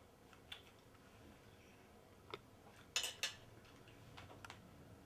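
Fork clinking and scraping against a plate while eating: a few scattered clicks, the loudest two close together about three seconds in.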